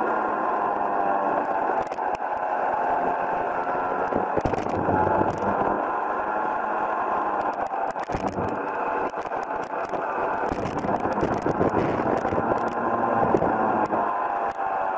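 Rotax Junior Max 125cc single-cylinder two-stroke kart engine running hard, its pitch dropping and climbing again several times as the kart brakes for corners and accelerates out. A few sharp knocks come through the engine note.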